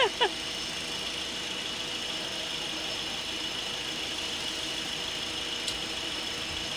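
Yanmar 2GM two-cylinder marine diesel idling steadily on a test run after a partial rebuild.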